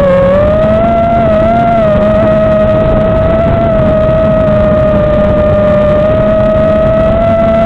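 Brushless motors and propellers of an FPV racing quadcopter whining in flight. The pitch dips and recovers in the first second, then holds nearly steady with a rushing hiss underneath.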